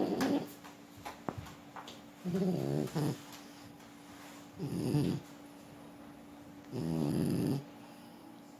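French bulldog snoring in its sleep: four pitched snores about two seconds apart.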